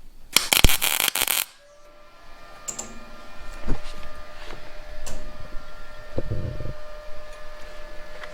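A short burst of loud crackling hiss lasting about a second, then a steady hum with scattered metal clicks and knocks.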